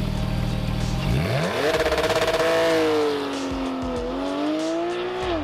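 Car engine idling, then revving up about a second in and holding high revs, easing off slightly and rising again before dropping near the end.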